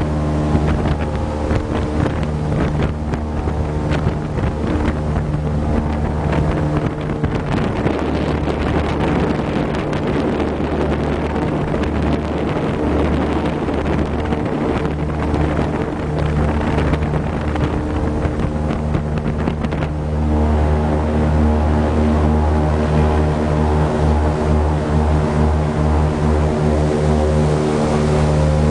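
An airboat's propeller and its Cadillac 500 cubic-inch big-block V8 engines running steadily under way, with wind rushing on the microphone. The engine note gets louder and fuller about two-thirds of the way through.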